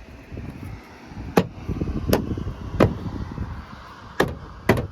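Plastic liftgate trim piece being knocked into its clips, five sharp knocks spread over a few seconds.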